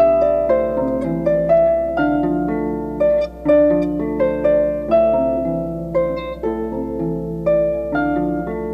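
Solo harp playing: plucked notes that ring and fade, about two a second in an even rhythm, with lower notes sounding under the melody, over a faint steady low hum.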